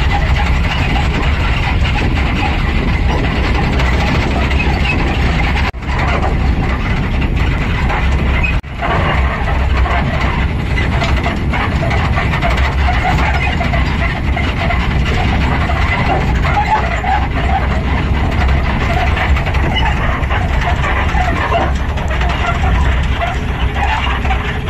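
Camouflage-painted safari jeep driving along a forest dirt track: a steady mix of engine, tyre and wind noise, heavy in the low end. The sound drops out briefly twice, about six and nine seconds in.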